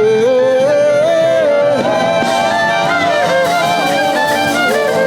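Live worship band music, with a sustained melodic line that climbs over the first two seconds.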